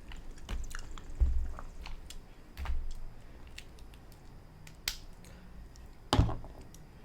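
Close-up eating sounds from chewing mussels: wet mouth and chewing noises with scattered small clicks and a few soft low thumps, and one sharper knock about six seconds in.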